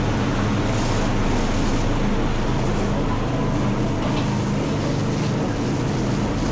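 A steady low engine hum under an even rushing noise, like traffic heard on the move.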